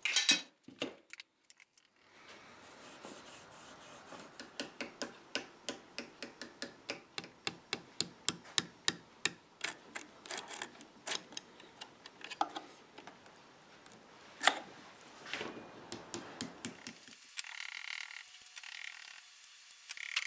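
A steady run of short, light taps, about two to three a second, from a knife blade working against cracked wooden veneer. The taps grow louder for several seconds, then thin out into a few scattered knocks and handling sounds.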